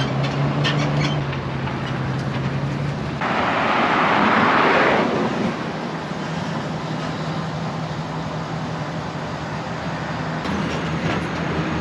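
A vehicle engine idling with a steady low hum, and a loud hiss lasting about two seconds a few seconds in.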